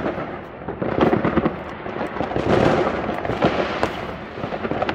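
Fireworks and firecrackers going off: a dense, continuous crackle of many overlapping bangs, loudest about a second in and again around two and a half seconds.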